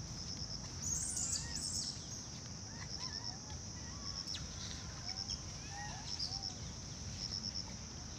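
Forest ambience: a steady high insect buzz with clusters of short pulsed chirps about once a second, scattered short bird calls, and a low background rumble.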